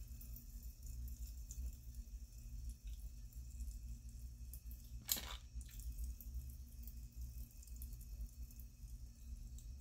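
Close-miked wet mouth sounds with faint crackling of Pop Rocks popping candy, and one sharper click about five seconds in, over a steady low electrical hum.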